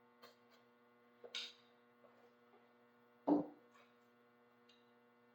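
Steady low electrical hum, with a few faint clicks and a soft thump about three seconds in.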